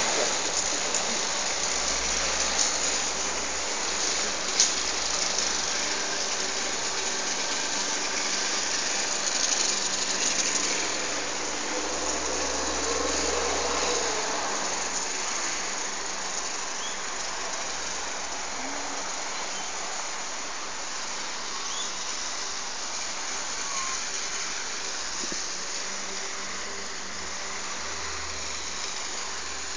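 Airliner engines passing overhead: a steady, broad roar that slowly fades as the aircraft moves away.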